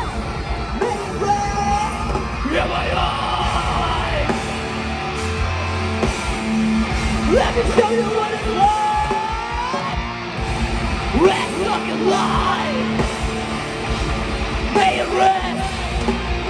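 Post-hardcore band playing live at full volume: distorted electric guitars, bass and drums, with a singer's voice over them.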